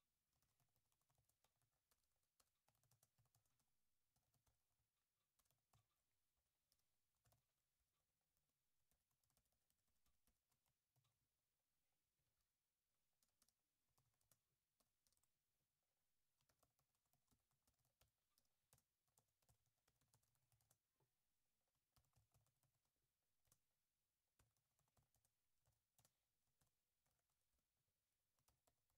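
Very faint typing on a computer keyboard: irregular bursts of key clicks with short pauses between them.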